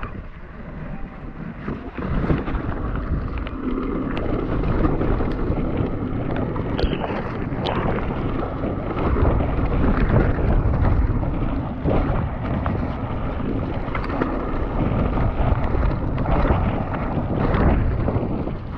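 Mountain bike riding down a wet trail, heard from a GoPro on the rider: wind buffeting the microphone over the rumble of the tyres, with sharp rattles and knocks from the bike over rough ground. It gets louder about two seconds in and stays loud.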